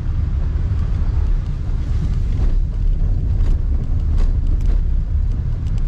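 Steady low rumble of a moving 4-wheel-drive Jeep, road noise mixed with wind buffeting the microphone.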